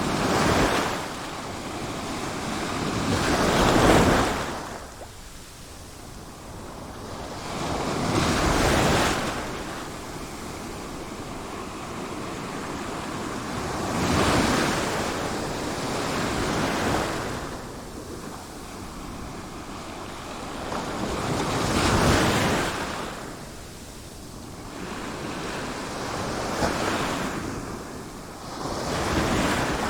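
Sea waves breaking and washing in, a surge every four to five seconds over a steady hiss of surf, with some wind.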